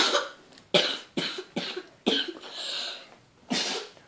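A child coughing: a run of about six short, separate coughs spread over four seconds, with a breathy pause before the last one.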